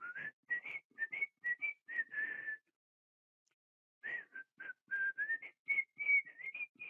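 A person whistling a tune through the lips: two phrases of short breathy notes, with a pause of about a second and a half between them.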